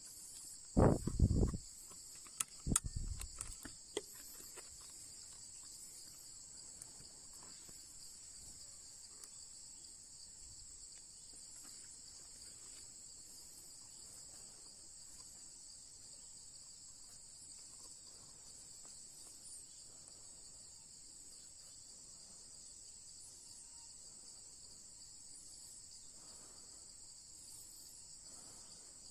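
Steady high-pitched insect chorus droning without a break, with a few low thumps and knocks in the first four seconds.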